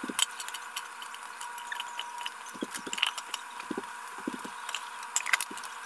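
Light kitchen clatter: irregular small clicks and crackles over a faint steady hum, with a few soft low thuds.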